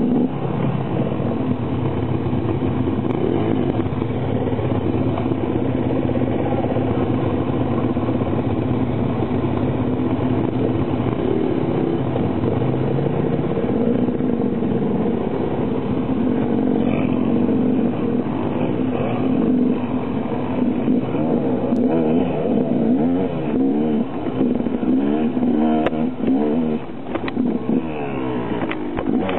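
Enduro motorcycle engine running under load, its revs rising and falling as it is ridden, with a few knocks near the end.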